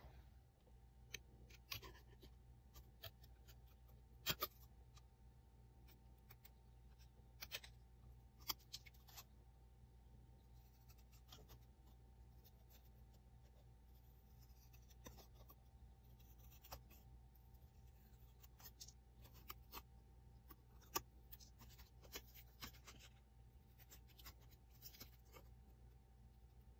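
Faint, irregular snips of small scissors cutting black cardstock, with the paper handled between cuts.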